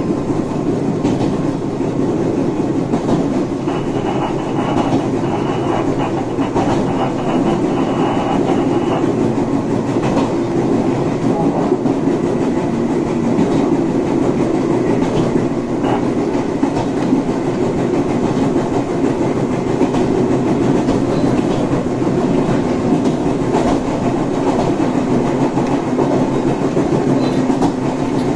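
Electric train running at speed, heard from inside the cab: the steady hum of its traction motors over the rumble of wheels on the rails, with scattered clicks from the track.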